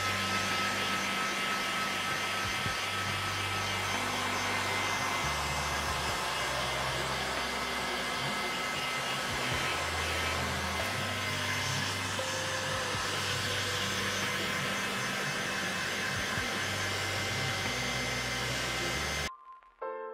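Hot-air blower (a 'Föhn') blowing steadily as it shrinks heat-shrink sleeves onto a motorcycle's fork tubes. The blowing cuts off suddenly about a second before the end.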